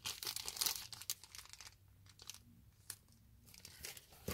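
Thin clear plastic packaging bags (low-density polyethylene) crinkling as they are handled. The crinkling is busiest for about the first second and a half, eases off, then starts again near the end.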